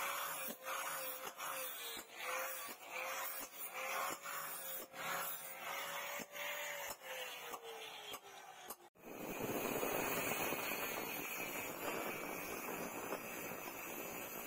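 Angle grinder with a flap disc grinding the leaf-spring steel of a kukri blade: a motor whine over rapid scratchy strokes, the whine sinking in pitch shortly before it ends. About nine seconds in it switches abruptly to an angle grinder's thin cut-off disc cutting through a flat steel bar, a dense steady hiss.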